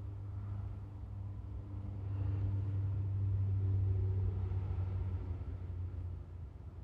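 Low rumble of a passing motor vehicle, swelling about two seconds in and fading away near the end.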